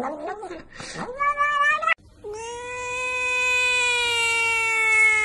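Cats calling: first short, wavering meows that break off abruptly, then after a brief gap a second cat starts one long, steady yowl that sinks slightly in pitch and holds on.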